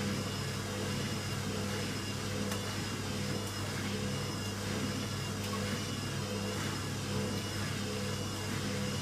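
Indesit 860B washing machine running, a steady low motor hum with a faint high whine that wavers up and down.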